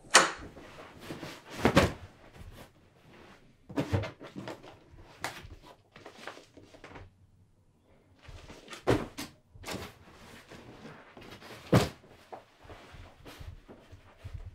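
Objects being handled and put into a cardboard box: irregular knocks, thuds and rustling of cardboard, with a short lull midway.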